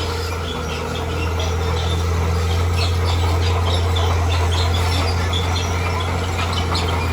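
Heavy diesel engine of a bulldozer running steadily, rising slightly in loudness about a second in, with many short high squeaks over it.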